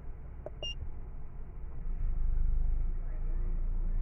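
Two quick electronic beeps from a handheld Autel MaxiCheck scan tool as its menus are worked, over a steady low rumble that grows louder about two seconds in.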